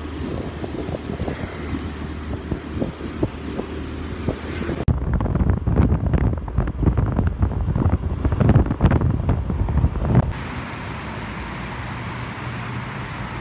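Motorcycle ride: wind buffeting the microphone over the steady running of the bike's engine and road noise. The sound changes abruptly twice, about five and ten seconds in.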